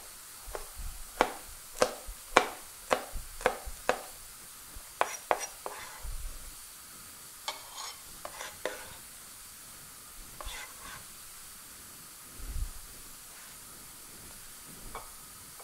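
Kitchen knife chopping green chile on a plastic cutting board: a run of sharp knocks about two a second for the first four seconds, then scattered knocks and taps as the diced chile is moved into a bowl.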